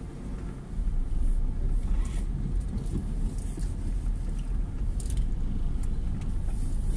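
Car running at low speed, heard from inside the cabin: a steady low engine and road rumble, with a few faint light ticks.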